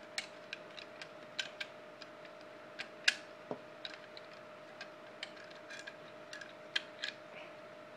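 Irregular light clicks and taps of small plastic and metal parts as the airsoft spring pistol's mainspring back plate is worked into the slide, the sharpest click about three seconds in. A faint steady hum runs underneath.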